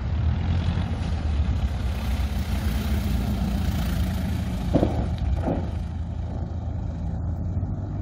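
Engine and propeller of a Piper PA-12 light aircraft, running steadily at power.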